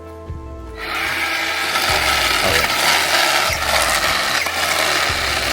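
Battery chainsaw cutting into wood, starting abruptly about a second in and running loud and rasping, over faint background music.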